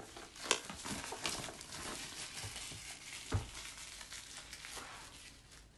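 Clear plastic wrap being torn off a small cardboard box and crumpled by hand: irregular crinkling and crackling, with one soft knock about three and a half seconds in.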